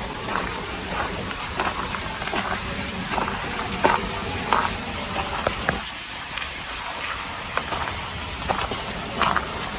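Footsteps at a walking pace, short sharp steps about every half second to second, over a steady rushing noise.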